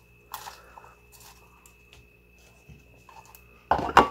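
Shredded iceberg lettuce being handled and dropped onto a plate: soft crisp rustles and crunches. A much louder burst of crackly handling noise starts near the end.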